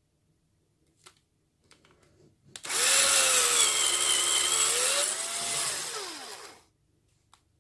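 Electric drill, mounted in a drill guide stand, spinning up and boring a hole into plywood for about four seconds, about two and a half seconds in, after a few light clicks of the stand being handled. The motor's pitch wavers under load and winds down as it stops.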